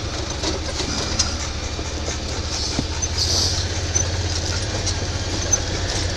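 UTV engine running with a low steady drone, with scattered rattles and knocks from the vehicle as it rides.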